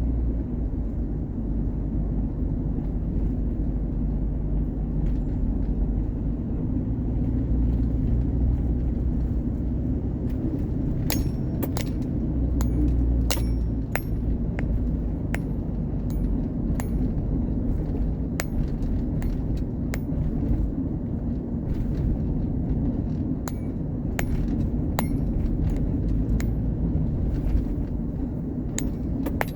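Station wagon driving, with a steady low rumble of engine and road noise. From about a third of the way in, irregular sharp clinks and ticks join it.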